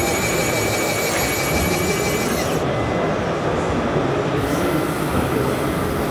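Steady din of a busy exhibition hall with a faint high whine, which fades about two and a half seconds in.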